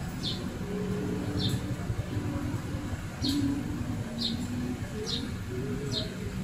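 A bird chirping over and over: short, high chirps that slide downward, about one a second, over a low background rumble.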